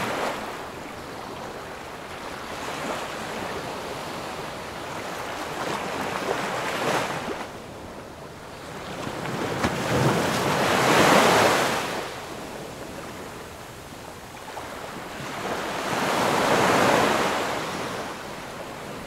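Ocean surf: waves washing in as a rushing noise that swells and fades about every four to five seconds, the biggest surge about halfway through.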